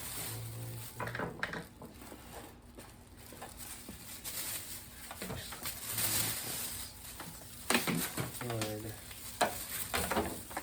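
Plastic grocery bag rustling and crinkling while a stick vacuum's dust cup is emptied into it, with clicks and knocks of the vacuum's plastic parts being handled.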